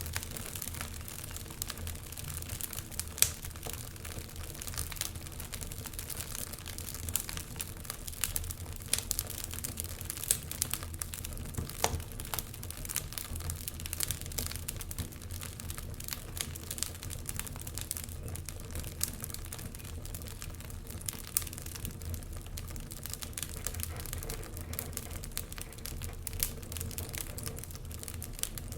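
Wood fire burning in a fireplace, crackling with irregular sharp pops and snaps over a steady low rumble.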